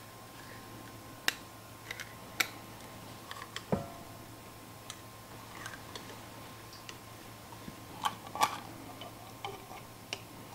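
Scattered sharp clicks and taps of a spatula scraping and knocking against a metal can of sweetened condensed milk as it is emptied into a stand mixer's steel bowl, with one duller knock near four seconds in. A faint steady hum runs underneath.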